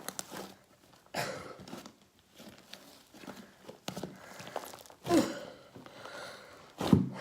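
Hands kneading and stretching a big batch of fluffy shaving-cream slime, giving irregular wet squishes and crackles, with the loudest squelch near the end.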